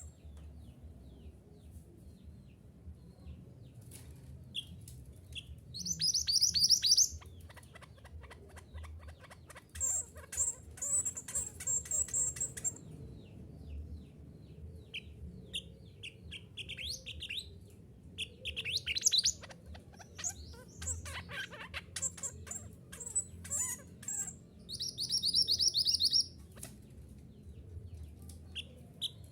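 Mantenan gunung, a minivet, singing in repeated bursts of fast, high chirping trills, each a second or two long, with short pauses between.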